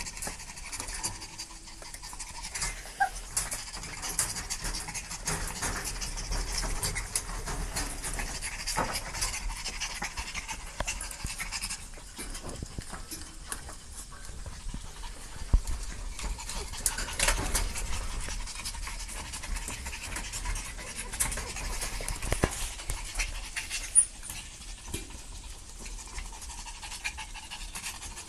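Dogs panting steadily, with scattered light clicks and knocks as a puppy paws at a wire cage.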